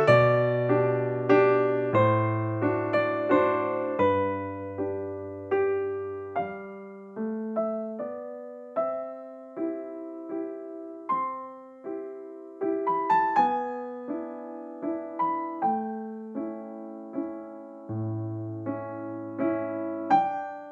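Background piano music: a slow melody of single struck notes that ring and fade, over longer held low notes.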